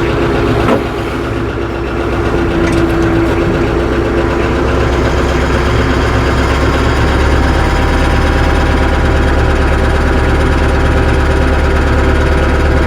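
Tractor engine running steadily as the tractor pulls forward slowly, a little louder after the first couple of seconds. A single sharp click sounds about a second in.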